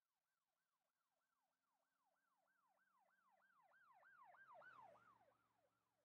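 Faint emergency-vehicle siren sweeping quickly up and down, about three times a second, swelling to its loudest between four and five seconds in and then fading as it passes.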